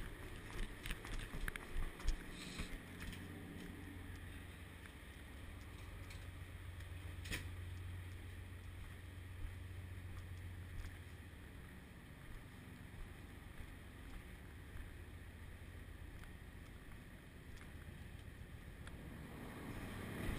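Steady low hum of a ship's machinery below decks. In the first few seconds there are footsteps on metal stair treads, and about seven seconds in there is a single sharp knock.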